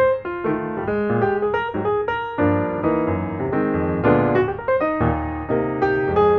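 Background music: a melody of struck notes over chords, each note fading after it is struck.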